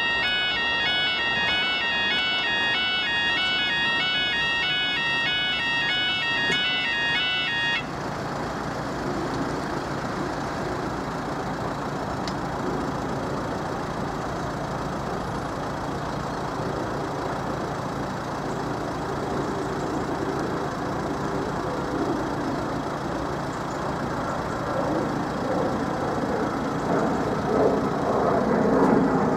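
Level crossing alarm sounding a loud electronic two-tone 'beep-beep', like a fire alarm, which cuts off suddenly about eight seconds in once the barriers are down. After that, steady road traffic noise with a low engine hum, growing louder near the end.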